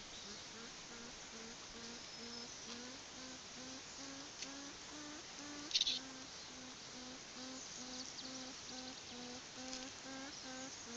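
North American porcupine vocalizing: a steady series of short, low, whining hums at about three a second, a few of them sliding slightly upward. A brief crackle about six seconds in.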